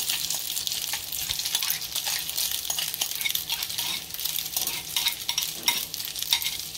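Noodle-and-egg cutlet mixture sizzling and crackling as it fries in hot olive oil on a non-stick tawa, with a few sharper clicks as it is pressed into shape in the pan.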